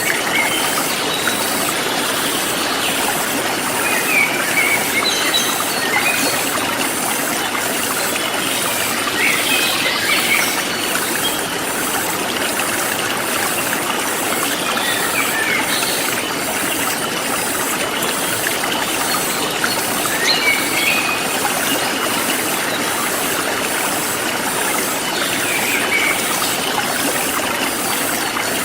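Forest stream flowing steadily, with short bird chirps every few seconds and a high insect trill pulsing about three times a second.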